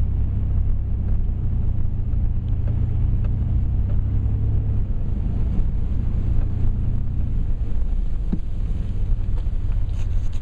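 Low, steady rumble of a car heard from inside the cabin as it drives slowly; the rumble drops about eight seconds in as the car pulls over. A few light clicks come near the end.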